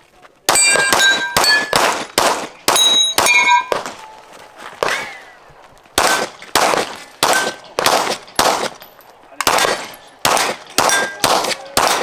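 Rapid gunshots, each answered by the ringing clang of a steel plate target being hit. They come in three quick strings with short pauses between them.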